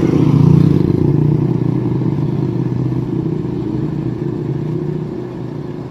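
Motor vehicle engine running steadily with a low, even hum, loudest about half a second in and then slowly fading.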